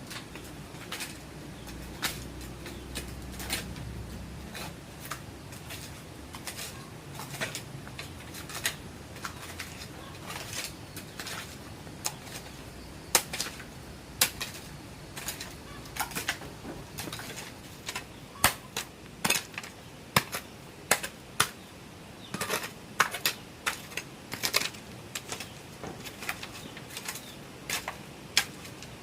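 A series of irregular sharp taps or knocks, about one or two a second, growing louder and more frequent in the second half.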